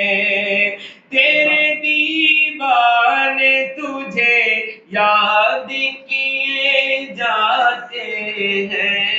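Solo male voice singing an Urdu naat in long held, ornamented notes, with short breaks for breath about a second in, near five seconds and near eight seconds.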